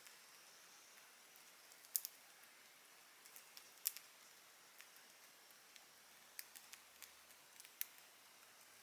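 Budgies biting and tearing at dry seagrass with their beaks: short, crisp snaps and crunches at irregular intervals, the sharpest about two seconds in and just before four seconds.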